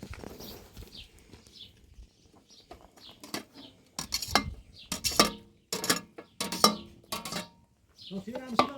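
Metal cooking pots and utensils clanking, with a run of sharp ringing clanks starting about four seconds in.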